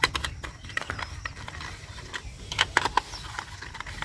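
Small screwdriver tightening screws into a plastic toy bus body: irregular light clicks and ticks of the tool and the plastic parts being handled.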